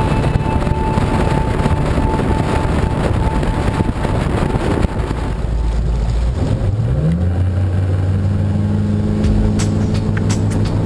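Steady wind and road noise on the boat being towed. About five seconds in, this gives way to a boat's engine rising in pitch as it speeds up, then holding a steady pitch at speed over water and wind noise.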